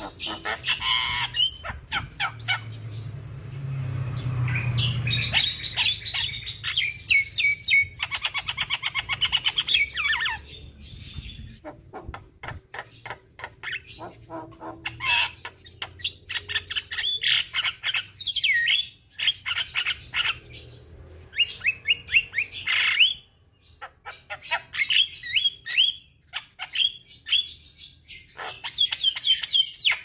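Javan myna singing a varied run of chirps, falling whistled notes and harsh squawks, with a rapid clicking rattle about eight seconds in.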